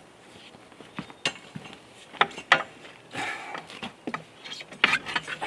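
Tools and parts being handled during a repair: a series of sharp knocks and clicks, loudest about two and two and a half seconds in and again near the end, with a short scrape between them.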